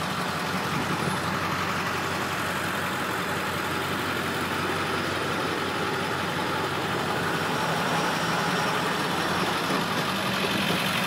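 Ford 7.3L Powerstroke V8 turbo diesel idling steadily.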